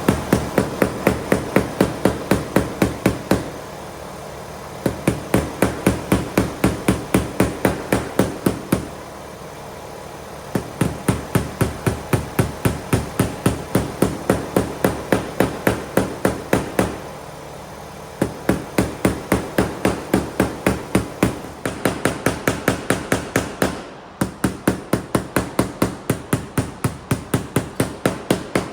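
Rapid, evenly spaced hammer blows, about four or five a second, in runs of several seconds broken by short pauses.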